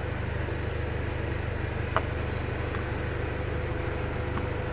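Mercedes-Benz Sprinter 316 van's petrol/natural-gas engine idling steadily and quietly, with a faint click about two seconds in.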